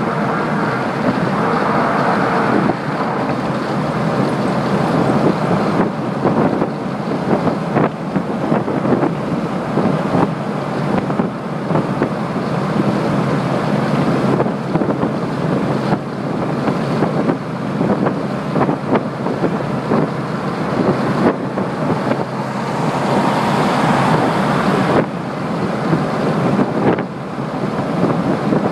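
Steady road and wind noise inside a vehicle's cab moving at highway speed, with wind buffeting the microphone.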